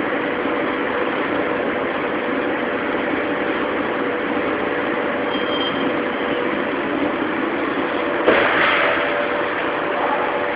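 Automatic car wash gantry running over a car: its rotating brushes and machinery give a steady hum over a constant rushing, whirring noise. About eight seconds in, a louder hissing rush starts abruptly.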